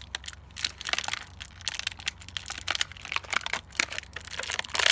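Plastic blister packaging of a Bakugan toy being crinkled, crunched and torn open by hand: irregular crackling that grows denser near the end.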